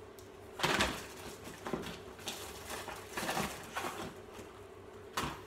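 Rustling and clattering of packaging as items are taken out of a delivery box: a series of irregular handling noises, the loudest just under a second in.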